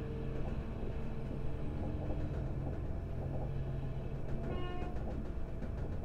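Passenger train running on the rails, heard from on board: a steady rumble of the carriage rolling along the track, with a brief high tone about four and a half seconds in.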